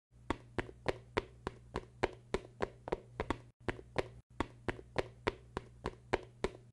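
Footsteps sound effect: quick, evenly spaced light taps, about three a second, with a short break near the middle, for minifigures walking.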